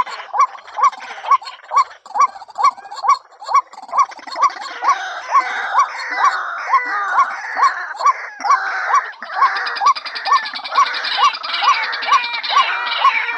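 Female white-breasted waterhen calling: a monotonous series of short notes, about two a second, with a denser layer of harsher, overlapping croaking calls joining in from about four seconds in.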